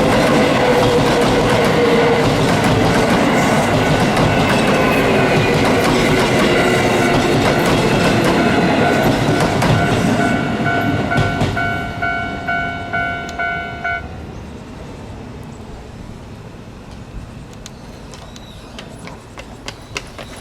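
An electric train of the Keio Line passes over a level crossing with loud wheel clatter. The crossing's warning bell rings in pulses at about two strikes a second and stops about 14 seconds in, leaving quieter street background.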